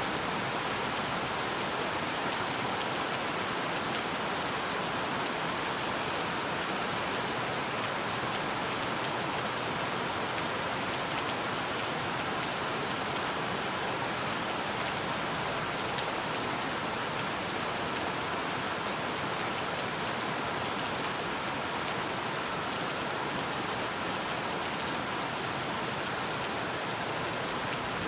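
Steady rain falling: an even hiss of many drops with fine patter, unchanging in level.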